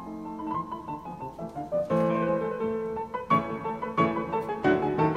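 Piano music: a melody over held chords, with notes struck more strongly from about two seconds in.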